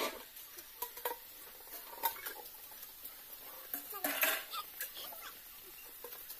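Steel dishes and pots clinking and scraping against each other as they are washed by hand, in scattered separate knocks, with a longer rushing scrape about four seconds in.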